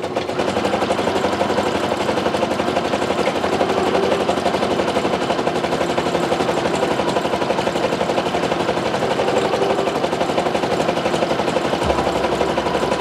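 Brother NQ470 domestic sewing machine stitching continuously at a fast, even rate, a rapid run of needle strokes, while machine-embroidering fabric.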